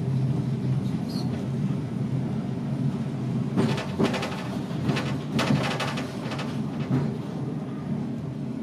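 Leeds Horsfield tramcar running along the track, heard from the driver's cab: a steady low hum, with a cluster of knocks and clatters from about three and a half to seven seconds in as the wheels run over the rail junction.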